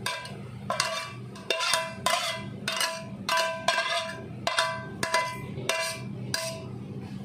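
Metal spatula scraping and knocking against a stainless-steel wok as stir-fried vegetables are scraped out, each stroke ringing like a bell. About a dozen strokes, roughly two a second, stopping about a second before the end.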